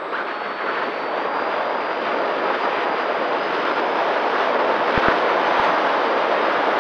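Airflow rushing over the onboard camera's microphone on an Opterra electric flying wing in flight, with the motor and propeller giving a faint thin whine that steps up in pitch about half a second in. The rush grows louder as the plane banks, with a few low knocks near the end.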